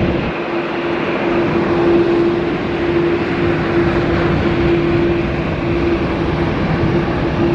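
Airliner jet engine noise: a steady drone with one held hum note.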